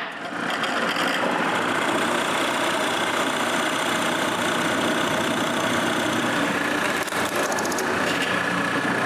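Power drill running steadily, boring the corner holes in a wooden tray-handle blank.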